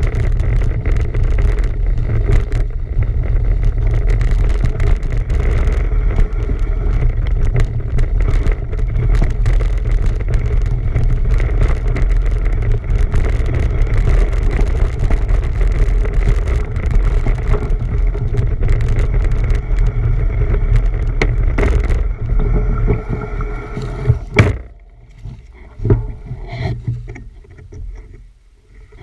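Wind buffeting the camera microphone while riding a bicycle, with steady rumbling road noise. It fades about 22 s in and drops away about 24 s in, leaving a few knocks and rattles.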